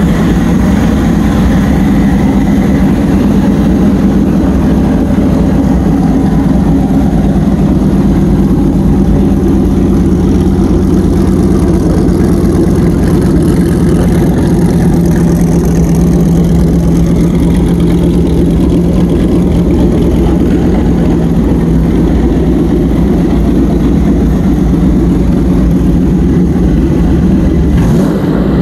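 Dodge Ram SRT-10's 8.3-litre Viper V10 engine idling steadily, loud and even.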